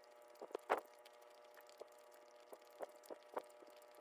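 Close-up chewing of crisp peeled apple: a few short crunches, the loudest about three-quarters of a second in, with softer ones later.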